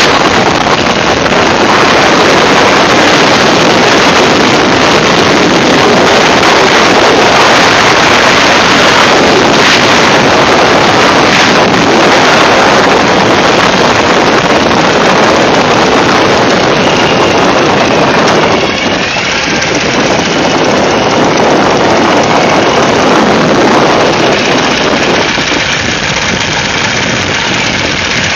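Ural motorcycle riding along, its flat-twin engine running under heavy wind noise on the microphone. The rush eases a little about two-thirds through and again near the end as the bike slows.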